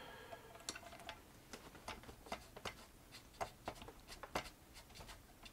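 A dozen or so faint, irregular small metallic clicks as needle-nose pliers grip and work at a split pin in the hand wheel shaft of a Vulcan toy sewing machine.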